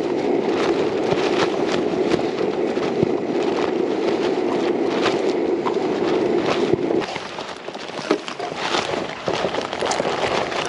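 Camping gas stove burner running steadily under a pot, shut off abruptly about seven seconds in, followed by scattered light clicks and rustles.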